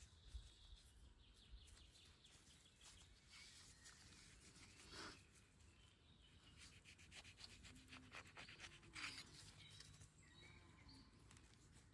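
Faint sound of a chef's knife cutting through an orange: a run of small crackling clicks as the blade goes through the peel and flesh, thickest in the middle, with a few faint bird chirps.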